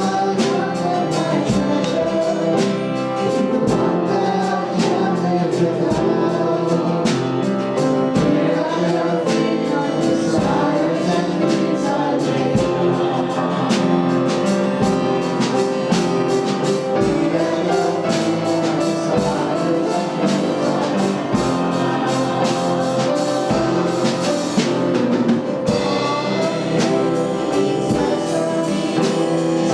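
Worship music: voices singing together with a band, a drum keeping a steady beat.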